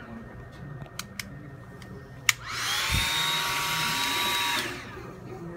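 Hair dryer switched on with a sharp click a little past two seconds in, its motor whining up to speed with a rush of air, running steadily for about two seconds, then switched off and winding down. A couple of faint clicks come before it.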